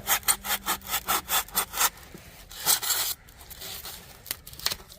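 Hand saw cutting with quick, even back-and-forth strokes, about four to five a second, which stop about two seconds in. One longer scrape follows, then a few light knocks.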